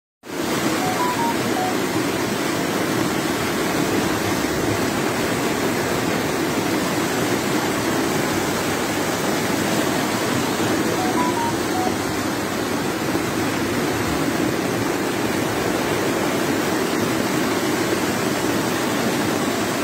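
Heavy rain and rushing floodwater pouring through a flooded street, a steady, unbroken rush of water.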